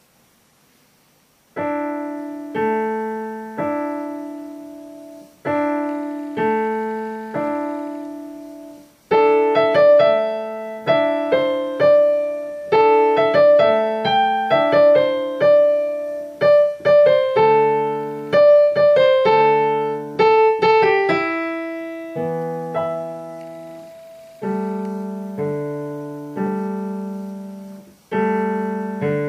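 A Kawai digital piano plays a simple two-handed piece. After a moment of silence, the notes begin about 1.5 s in as separate, spaced phrases. From about 9 s they give way to a busier, louder run of notes, and then to lower, slower phrases.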